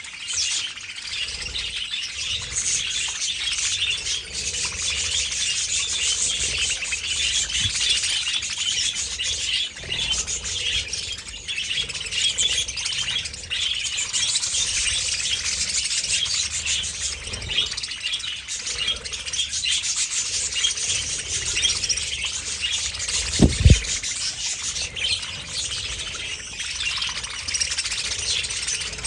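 A large flock of budgerigars chattering and chirping all at once in a steady, dense wash of calls. A brief low thump sounds once, about two-thirds of the way through.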